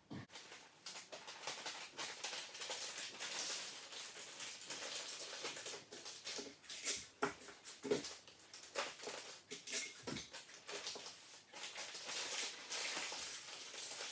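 Rustling and light irregular taps of paper napkins, plates and cups being handled and laid on a table.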